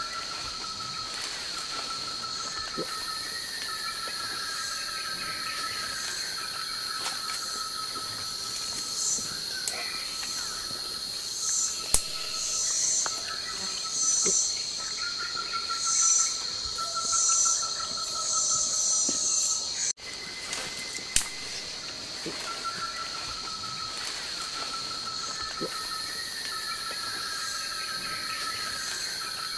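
Forest insect chorus: a steady high-pitched drone, with short trills repeating every second or two. From about a third of the way in until about two-thirds, a loud pulsing high buzz comes and goes.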